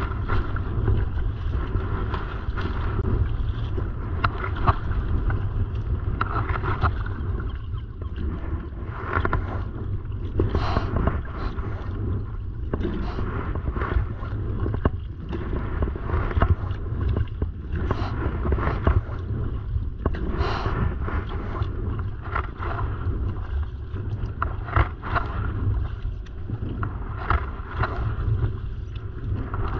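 Wind buffeting the microphone in a steady low rumble, over water splashing and sloshing as a kayak paddle dips into choppy water stroke after stroke, with short splashes every second or two.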